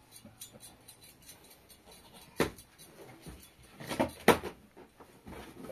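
A few sharp clicks or knocks of small household objects being handled: one about two and a half seconds in, then two close together about four seconds in, the second being the loudest.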